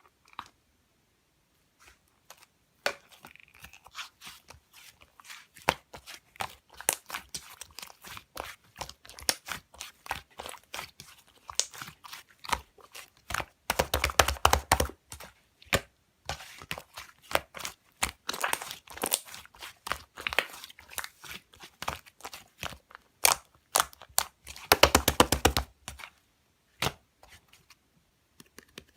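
Slime being squeezed and pressed by hand close to the microphone, making crackling, popping clicks. There are two denser, louder runs of rapid pops about halfway through and again near the end.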